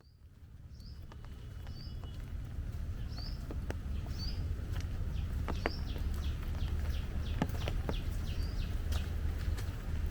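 A bird repeating a short, high, falling call about once a second, over a steady low rumble, with a few sharp ticks scattered through; the sound fades in at the start.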